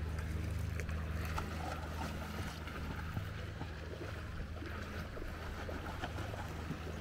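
A steady low hum with light splashing of shallow sea water.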